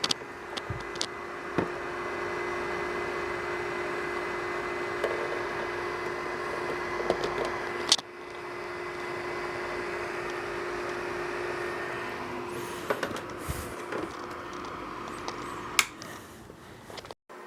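Mini dehumidifier running: a steady fan whir with a constant hum, broken by a sharp click about halfway through, with a few clicks and knocks near the end.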